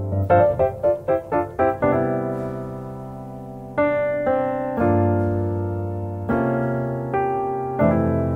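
Background piano music: a quick run of short notes in the first two seconds, then slow held chords.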